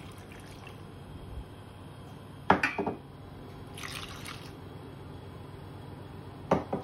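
Milk poured from a jug into a steel pot of sliced potatoes, a steady liquid pour with a short sharp clink about two and a half seconds in and a hissier splash near the middle.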